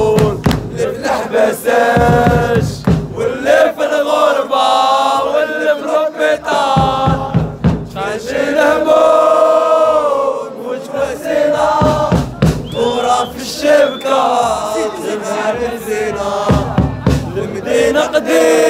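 Football supporters in the stands chanting a song in unison, with men's voices close by singing loudly along.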